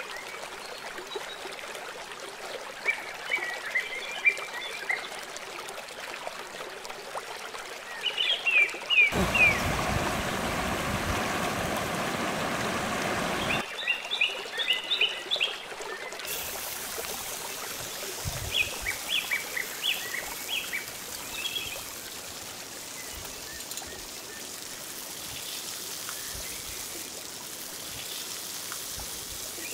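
Masala-coated murrel fish steaks sizzling in shallow oil in an iron pan: a steady, bright hiss through the second half. Birds chirp in short bursts now and then, and there is a few seconds of loud rushing noise before the sizzling begins.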